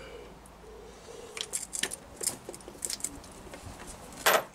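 Light metallic clinks of steel sockets being handled on a socket-set rail, a scatter of small clicks through the middle, ending with one sharper click near the end as a socket is taken.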